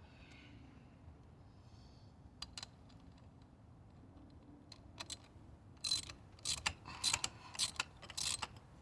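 Hand tools clicking and rattling against engine parts during spark plug and coil work: a few faint clicks, then a run of sharper clicks about half a second apart over the last three seconds.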